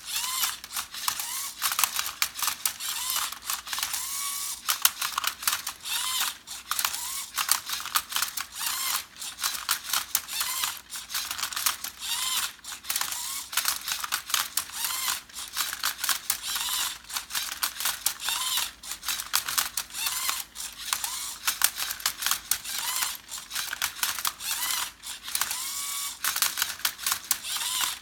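Lego Mindstorms EV3 MindCub3r Rubik's Cube robot at work: its small electric motors whir in short runs that rise and fall in pitch, over dense clicking of plastic Lego gears and the cube as it is turned and flipped.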